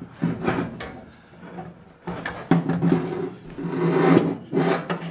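Irregular bursts of scraping and rubbing, metal parts being worked by hand as the cowl vent handle and its pivot bolt are pulled apart.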